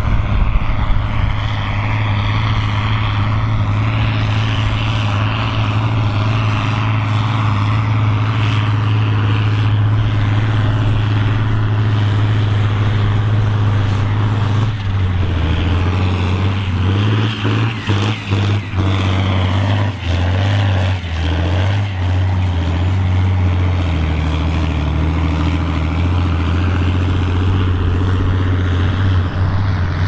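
Big diesel tractor engines working under heavy load as they pull ploughs, a loud, steady deep drone. About halfway through the engine note changes pitch, and for a few seconds the sound dips briefly several times.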